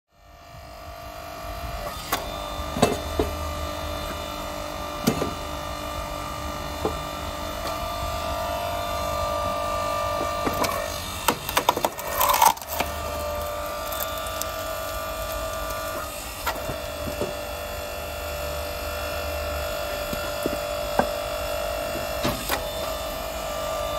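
Electric log splitter's 240V motor and hydraulic pump running with a steady whine, while a log splits under the ram with sharp cracking and splintering, loudest around the middle. Scattered wooden knocks follow as the split pieces are handled.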